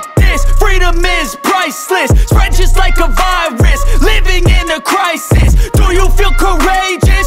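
Hip hop backing music with a heavy, sustained bass and a hard beat.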